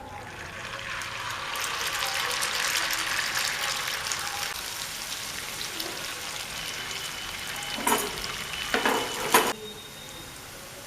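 Boiled noodles sizzling and crackling as they go into hot oil in a pan for deep frying. The sizzle swells in the first couple of seconds and holds. A few louder bursts come near the end, then it settles to a quieter hiss.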